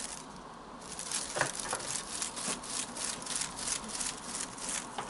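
British Shorthair kitten chattering: a rapid run of breathy clicks, about five a second, starting about a second in, with a few short chirps mixed in.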